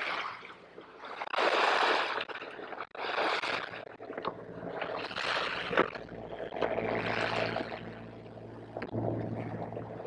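Water rushing and splashing along the hull of a sailing yacht under way, swelling and fading in surges every second or two. A low steady hum comes in during the second half.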